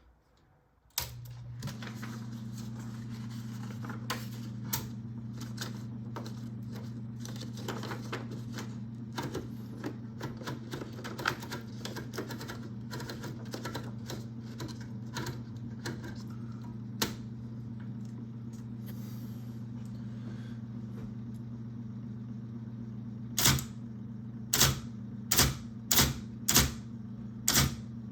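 IBM Selectric I electric typewriter: its motor comes on suddenly about a second in and hums steadily throughout, with irregular runs of key strikes over it. The typing stops for several seconds, leaving the motor hum alone, and near the end comes a series of louder, evenly spaced strikes, about two a second.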